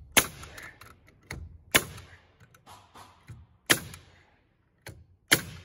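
Pneumatic framing nailer firing nails through OSB wall sheathing: four sharp shots about one and a half to two seconds apart, with a few lighter knocks between them.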